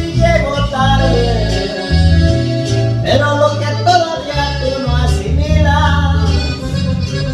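A man singing into a handheld microphone over an instrumental backing track, with a bass line that steps from note to note.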